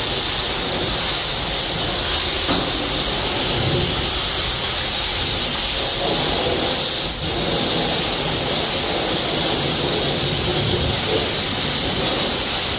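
Steady hiss of high-pressure water spraying a semi truck in a wash bay.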